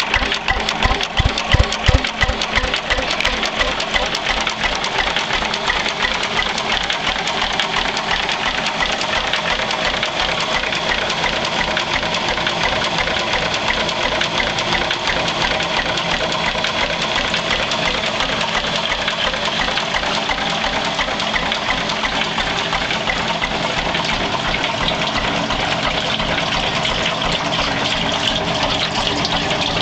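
1918 Lister P type 6 hp stationary engine running steadily with a fast, even beat, with a few louder knocks about one to two seconds in.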